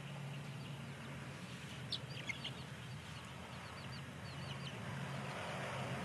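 Newly hatched chicks peeping in a brooder: a run of short, high peeps in the middle, over a steady low hum.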